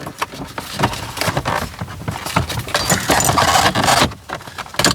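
Plastic dashboard trim around a car's gauge cluster clattering and clicking as it is worked loose by hand, with a quick run of knocks and rattles.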